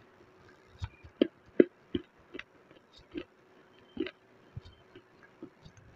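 Close-up crunching of dry white khadi clay being chewed: irregular crisp cracks, the loudest two about a second and a half in.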